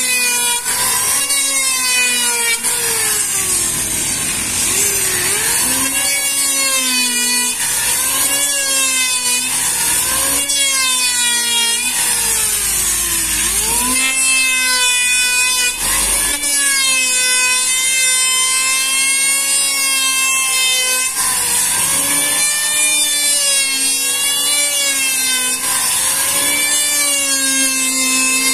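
Handheld electric wood planer running and cutting along a wide board in repeated passes. Its motor whine sags in pitch as the blades bite on each stroke and rises again between them, about every two seconds, over a steady high hiss of shavings.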